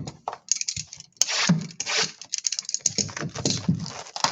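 A trading-card box and its packs being opened by hand: wrapping and foil being torn and crinkled in quick rasps, with card and cardboard handling and a few light knocks on the table.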